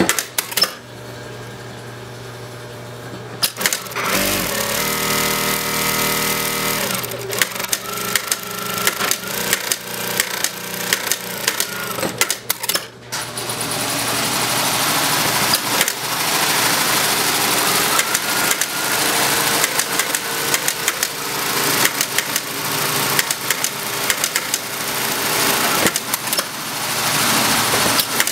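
Juki direct-drive industrial single-needle lockstitch sewing machine stitching through fabric: fast needle clatter over a steady motor whine. It runs in spells, with a short dip about halfway through.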